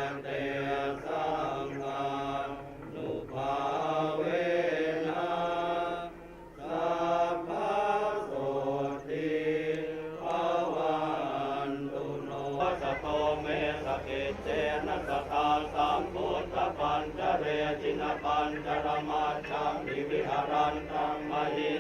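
Buddhist monks chanting Pali verses in a steady, rhythmic recitation. A low steady hum joins about halfway through.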